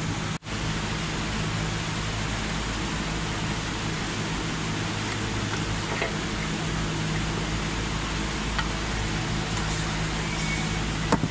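Steady hiss with a low hum under it, like a running fan or blower, at a constant level, with a few faint clicks of metal parts. The sound drops out briefly about half a second in.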